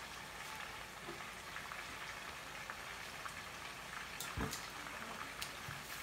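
Chicken pieces frying in oil in a skillet: a steady sizzle with light crackles. A single sharp knock comes about four and a half seconds in.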